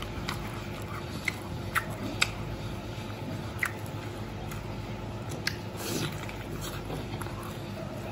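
Close chewing and biting into a crispy fried chicken leg glazed in sweet sauce, with scattered sharp crunches, the loudest about two seconds in, over a steady low hum.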